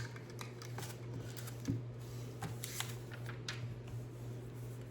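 Small plastic Lego pieces being handled: scattered light clicks and rattles as bricks are picked up and pressed together, over a steady low hum.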